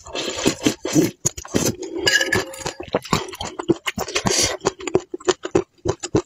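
Close-miked eating: several long slurps of noodles and broth off a spoon, with quick wet clicks and smacks of chewing between them.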